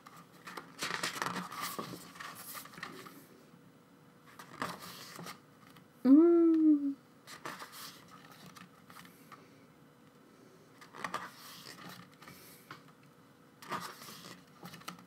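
Album photobook pages being turned and handled: scattered short rustles and slides of paper. About six seconds in, a short wordless vocal sound rises then falls in pitch, the loudest thing here.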